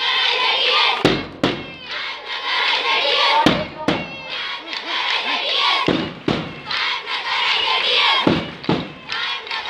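A crowd of children's voices chanting and shouting together, cut through by sharp knocks that come in pairs about every two and a half seconds, in the rhythm of a group drill.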